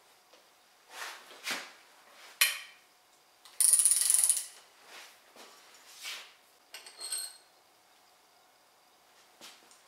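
Hand ratchet wrench clicking in a quick run lasting about a second, among scattered clinks and knocks of tools and metal engine parts being handled.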